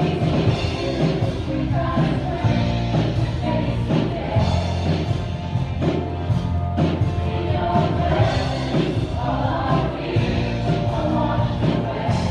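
A woman singing a worship song into a microphone, accompanied by an electronic keyboard, with a steady bass line and beat.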